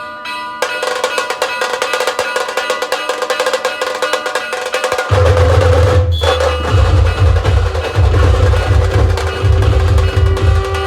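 Dhol-tasha drumming: a dense, rapid roll of tasha strokes begins under a second in, and about five seconds in heavy dhol beats join and the playing gets louder.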